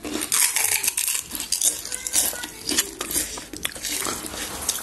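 Spoons and dishes clinking and clattering: a quick, irregular run of light clinks.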